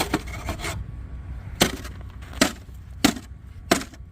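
Hard-packed snow and ice crunching in four sharp, evenly spaced strokes about two-thirds of a second apart, over a low steady rumble.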